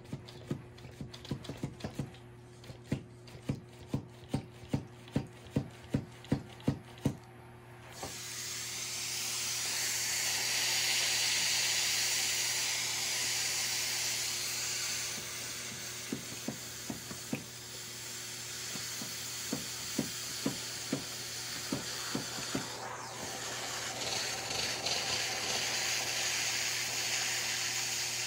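Shark S1000WM steam mop running: its pump clicks about twice a second, then about eight seconds in steam starts hissing loudly and keeps on, with a few more clicks partway through.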